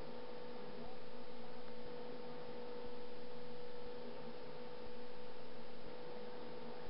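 Steady mid-pitched electrical hum over a hissy background, its level stepping up and down about once a second.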